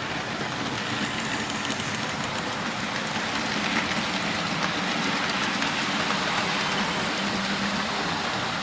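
Model trains running on the layout track: a steady whirr of small electric motors and wheels rolling over the rails, with faint ticking from the wheels, growing a little louder over the first few seconds and then holding steady.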